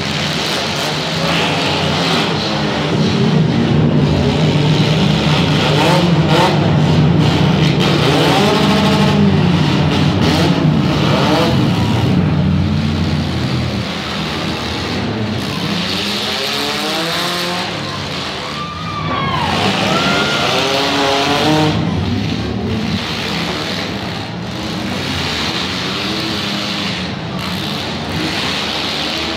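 Demolition derby cars' engines revving hard, the pitch climbing and falling again and again, with scattered sharp knocks.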